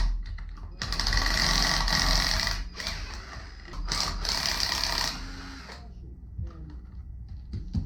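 A power tool run in two bursts of about two seconds each, a second or so apart.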